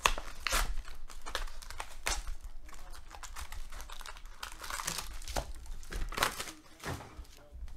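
Foil trading-card pack wrappers and clear plastic wrap crinkling in irregular short bursts as hands tear open and handle Panini Intrigue basketball packs.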